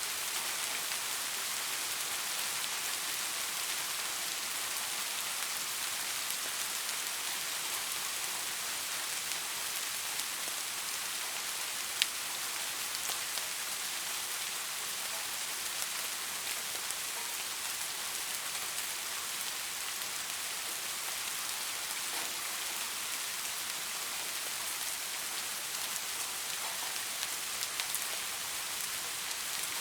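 Steady rain falling on leaves: an even, dense hiss with scattered louder drops, and one sharp drop about twelve seconds in.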